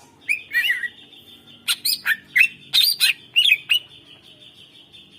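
Cucak ijo (greater green leafbird) singing loud, sharp whistled chirps: a short burst near the start, then a quick run of notes in the middle, over a steady high-pitched tone.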